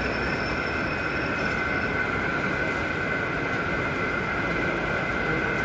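Steady running whine of model railway locomotives on an exhibition layout, over a constant background din.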